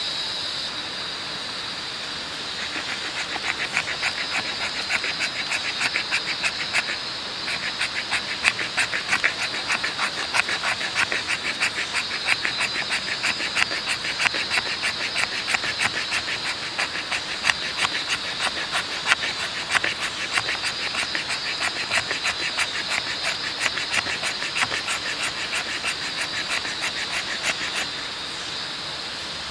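Knife blade scraped quickly along a split stick, shaving off fine wood curls for tinder: rapid, even scraping strokes, several a second, starting about two and a half seconds in, with a brief pause about seven seconds in, and stopping near the end. A steady high insect drone runs underneath.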